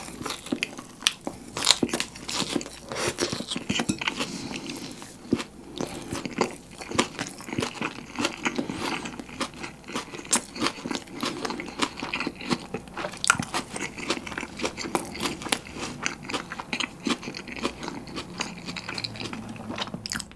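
Close-miked eating sounds: biting into and chewing a fried-chicken bun burger with shredded green onion, with many crisp crunches and wet chewing sounds in an uneven rhythm.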